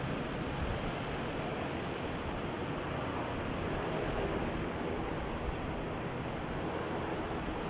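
Jet engines of a twin-engine widebody airliner running steadily as it flares low over the runway just before touchdown, heard as an even noise.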